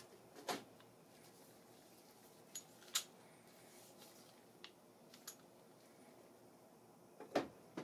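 A handful of faint clicks and light taps of an oil bottle and an engine piston being handled on a metal workbench, the sharpest about three seconds in and near the end.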